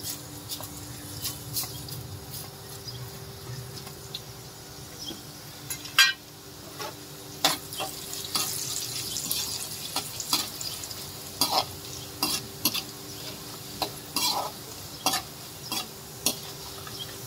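Whole spices (coriander seeds, cumin, fennel, cinnamon, cardamom, dried red chillies) sizzling as they roast in hot oil in a steel kadhai. A steel slotted ladle stirs them, scraping and clinking against the pan many times over the steady sizzle.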